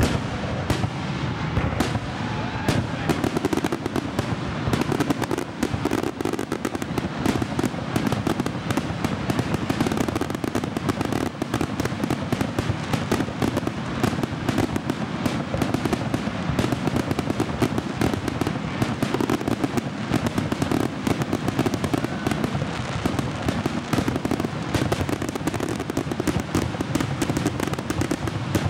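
Aerial fireworks display in a dense, unbroken barrage: many overlapping shell bursts and crackles every second.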